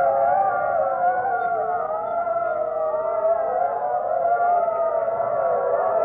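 A wolf pack howling together. Several voices overlap, each holding a long, wavering note, and the chorus never breaks off.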